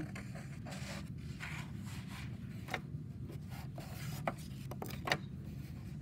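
Wooden ruler moved over drawing paper and a conté crayon drawn along its edge: soft scraping and rubbing with a few sharp ticks, the loudest about five seconds in, over a low steady hum.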